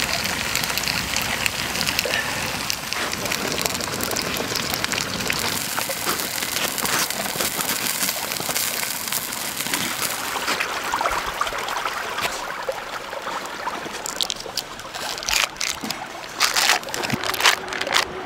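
Smoked brook trout fillets frying skin side down in a hot pan, a steady sizzle. The sizzle eases after about twelve seconds, and near the end come several sharp knocks of a utensil against the pan.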